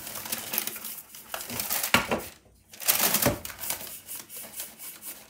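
Baking paper rustling and crinkling as a springform cake pan is turned and handled on it, with a couple of sharper knocks about two and three seconds in.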